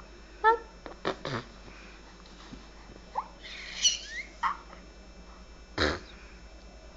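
A baby making short squeaks, squeals and coos: a string of separate high-pitched bursts, with a rising squeal a little after three seconds and a sharp burst near six seconds.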